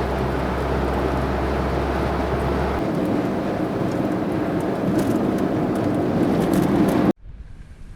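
Vehicle noise on the move, an engine and rushing road noise, with a steady low hum that drops away about three seconds in. It cuts off abruptly near the end.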